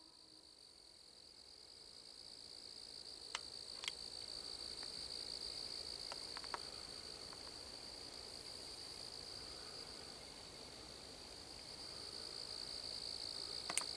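A steady, high-pitched night insect chorus, with a few faint clicks scattered through it.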